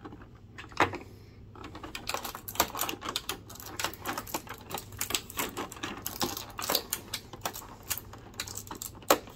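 Rapid, irregular small clicks and taps of a hard plastic packaging tray and a plastic accessory being handled while a taped-in piece is cut free with a knife, with a few sharper clicks about a second in and near the end.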